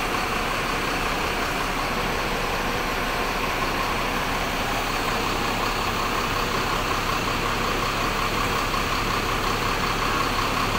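A motor vehicle engine idling with a steady, unbroken hum.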